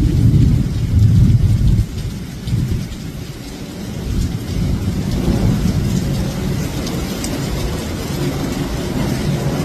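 Strong wind gusting against the microphone in a rainstorm: a heavy, uneven low rumble, loudest in the first two seconds, with rain hissing and pattering faintly above it.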